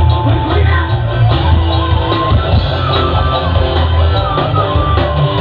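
Loud music with a heavy, continuous bass line and a sustained melody, played through a large parade sound system.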